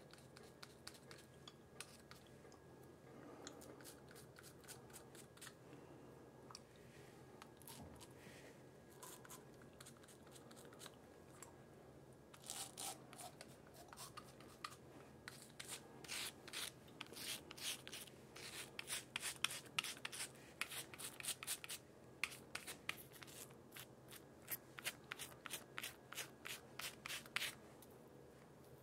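Five-blade cartridge razor scraping through stubble and shaving cream in short strokes. It is faint for the first half, then comes in quick runs of a few strokes a second from about halfway until near the end.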